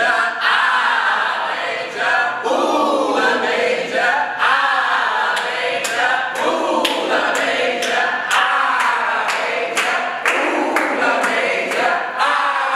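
A group of voices singing and chanting together. Sharp claps keep a steady beat from about halfway through.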